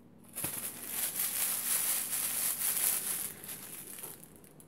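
Catnip pouch crinkling and rustling as it is handled, fading away near the end.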